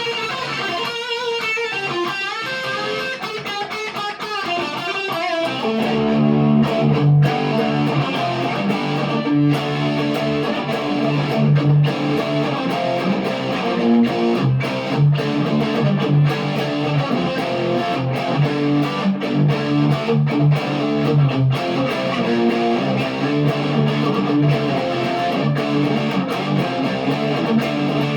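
PRS McCarty 594 Hollowbody II electric guitar played through a Marshall DSL40C amplifier: a chord rings out and fades over the first few seconds, then a picked riff with strong low notes runs on.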